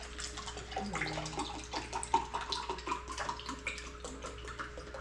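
Aloe vera drink being poured from a bottle into a drinking glass, a continuous splashing, gurgling stream as the glass fills.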